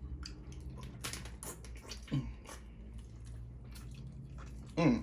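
Close-up wet eating sounds: scattered clicks, smacks and squishes of chewing crab in butter sauce, over a low steady hum.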